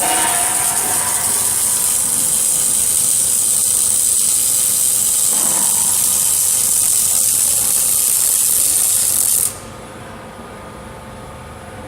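Robot welding arc running with a steady hiss, which cuts off suddenly about nine and a half seconds in as the weld stops, leaving a quieter machine hum.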